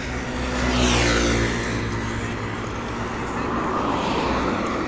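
Motor vehicles passing on the highway. One goes by close about a second in, its engine and tyre noise falling in pitch as it passes; another swells up near the end.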